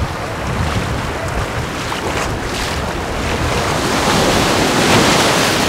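Small waves breaking and foamy surf washing up the sand, swelling to its loudest about four to five seconds in, with wind buffeting the microphone.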